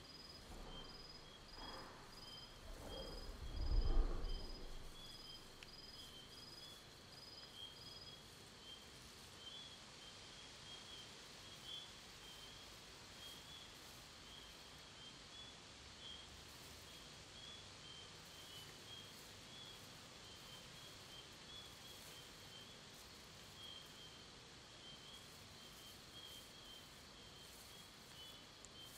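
Fantasy forest ambience: insects chirring steadily at two high pitches, one layer pulsing about twice a second for the first eight seconds. Near the start a deep, heavy creaking groan of a giant awakened tree swells and peaks at about four seconds, then only the insects go on.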